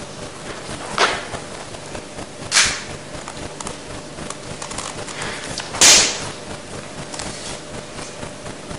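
Three sharp, short noises from an actor's fast movements during a biomechanics etude, about a second in, a second and a half later, and again about three seconds after that, the last one loudest, over steady room noise.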